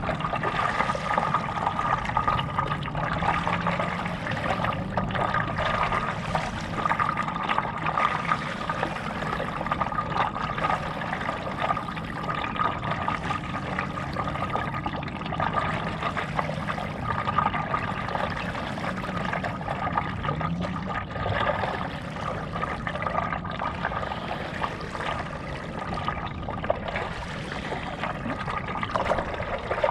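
Water splashing and trickling in soft surges every couple of seconds as a paddle dips and pulls through lake water beside a stand-up paddleboard, with a steady high-pitched hum underneath.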